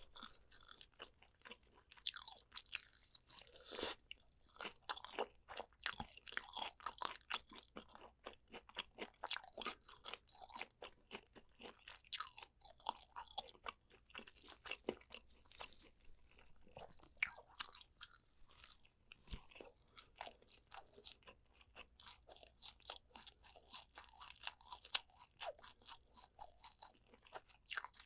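Close-miked eating sounds: a person biting and chewing spicy soy-braised pork ribs, with dense crisp clicks and wet mouth sounds and a few louder bites, one about four seconds in and one about twelve seconds in.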